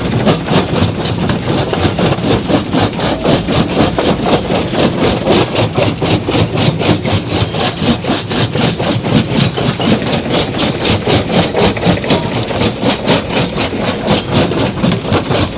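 Stone crushing machine running, a loud steady mechanical din with a fast, even pulse of knocks several times a second.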